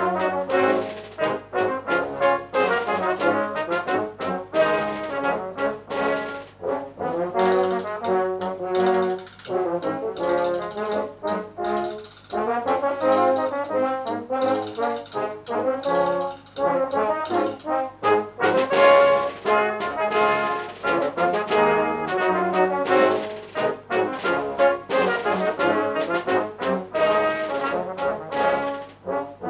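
Brass septet playing a piece of music: E-flat and B-flat cornets, alto horn, two tenor horns and bass tuba, with percussion keeping a steady beat.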